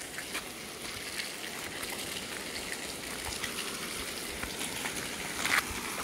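Steady rush of water falling on a creek's waterfall, an even noise with no rhythm.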